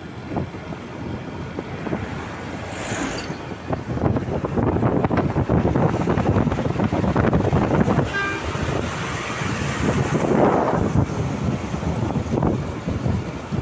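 Road noise of traffic on the move, with a bus among the vehicles: steady rushing and engine rumble that grows louder about four seconds in. A short horn toot sounds about eight seconds in.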